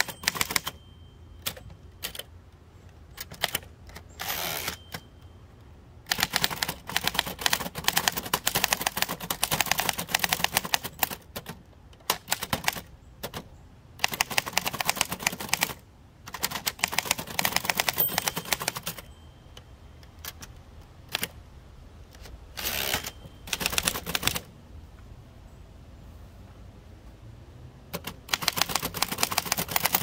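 1925 Remington Model 2 portable typewriter being typed on: fast runs of typebar strikes clacking against the platen, broken by pauses of a second or more and a few single strokes.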